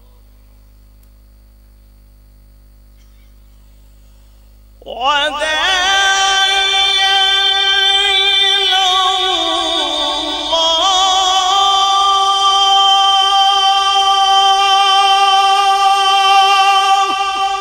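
Male qari's amplified Quran recitation: about five seconds in, after a faint low hum, his voice comes in and holds one long, ornamented melodic note that wavers and dips in pitch midway.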